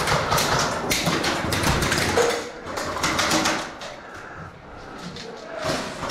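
A dense, irregular clatter of sharp clicks and knocks, thinning out and growing quieter about four seconds in.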